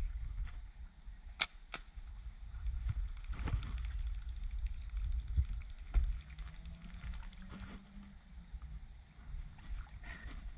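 Slingshot shot: a sharp snap of the rubber bands on release about a second and a half in, with a second lighter click just after, then a few fainter knocks over a low rumble of wind and movement in the kayak.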